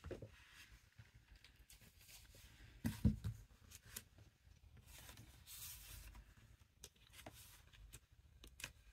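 Paper craft pads and a sticker sheet in a plastic sleeve being handled on a desk: quiet rustling and sliding, with a thump about three seconds in as a pad is set down.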